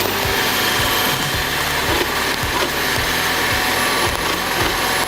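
A John Deere 1270E forestry harvester working timber: its head saws through and feeds a log, over steady machine noise.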